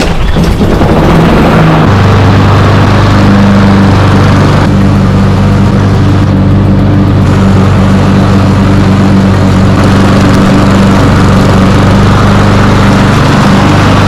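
Honda walk-behind lawn mower's engine running at a steady speed while mowing grass with freshly sharpened blades. The pitch shifts for about the first two seconds, then holds steady.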